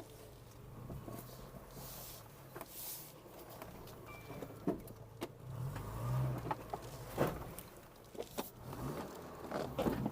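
Liebao 4WD SUV driving slowly over wet, slippery ground, its engine running low and steady and swelling briefly about six seconds in. Scattered sharp knocks and clunks come mostly in the second half.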